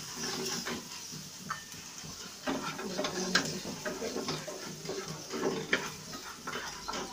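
Spatula stirring and scraping fried onions and green chillies in a non-stick frying pan and scooping them out, with repeated clicks and knocks of the spatula against the pan and plate over a light sizzle of oil.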